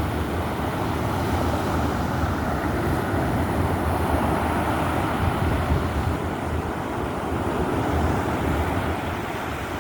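Stormy sea: a steady, loud rumble of waves and surf, with wind buffeting the microphone.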